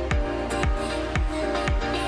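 Background electronic music with a steady bass-drum beat about twice a second over sustained synth tones.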